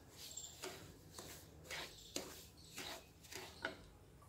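Wooden spatula scraping and stirring dry roasted semolina in a pan: faint soft scrapes, about two a second.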